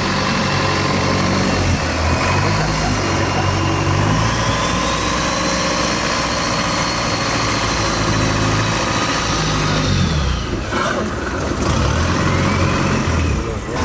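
Boat engine running loud with a splashing, noisy wash. Its pitch rises and falls several times as the throttle changes.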